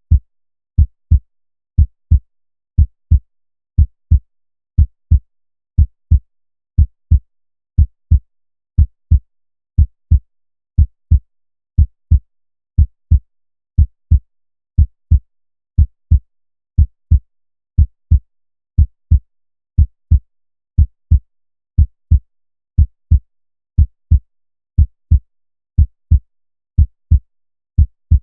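A heartbeat: a steady, even lub-dub of paired low thumps, about one beat a second.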